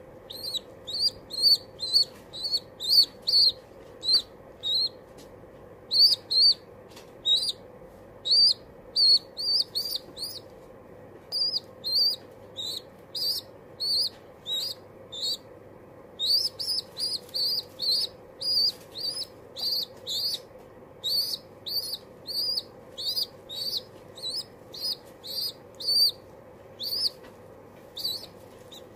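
Young pigeon squab peeping: short, high-pitched calls repeated one or two a second in runs with brief pauses.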